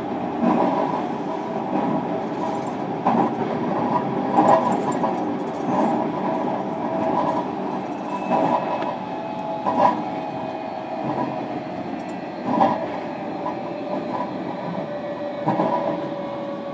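Running sound inside a JR Kyushu 305 series electric train's motor car: a steady traction-motor whine over track rumble, with wheels clacking over rail joints at regular intervals. The whine slowly falls in pitch in the second half.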